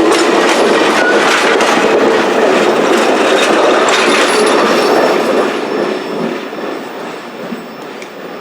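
Freight train rolling past, with steel wheels clicking over the rails; the sound fades away from about five seconds in.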